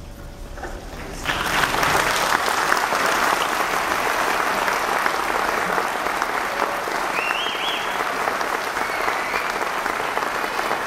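The last held note of a school string orchestra fades out, and about a second in the audience breaks into applause, which carries on steadily.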